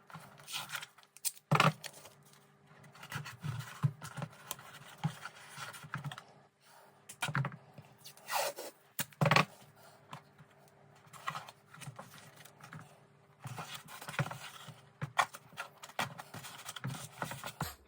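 Irregular scraping, tapping and clicking as parts of a model boat kit are handled and pressed into place in the hull, over a faint steady hum.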